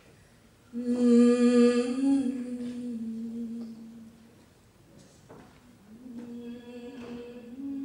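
A voice holding long, steady sung notes, chant-like. It comes in loud just under a second in and fades over the next few seconds; a quieter held note returns near the end, with a couple of soft knocks in between.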